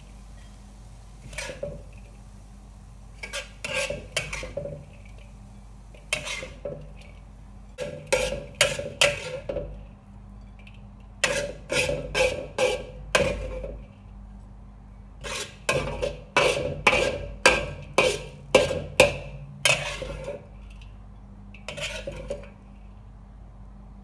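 Metal wok spatula scraping and knocking against a wok as fried rice is scooped out, in runs of several quick strokes with short pauses between runs.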